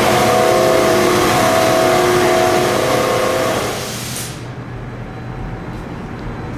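Holz-Her Unimaster 7226M CNC router running a short program: a loud rushing machine noise with several steady tones stops about four seconds in, leaving a quieter steady low hum.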